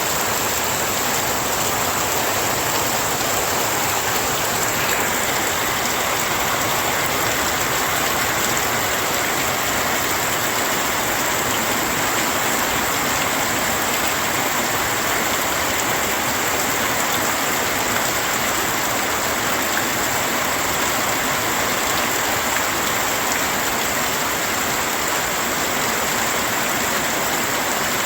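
Heavy rain falling steadily in a continuous, even hiss with no let-up.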